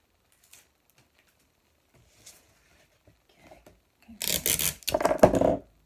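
Faint rustles of paper being handled, then loud rubbing and rustling right against the microphone, starting about four seconds in and lasting over a second.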